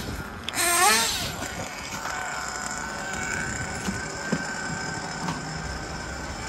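Nitro RC car engine running at speed, a steady high whine, after a wavering sound that rises and falls in pitch during the first second.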